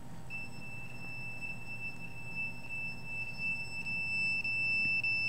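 A handheld RF meter's alarm sounding one steady high-pitched tone. It starts just after the beginning and grows louder about four seconds in, signalling a high reading.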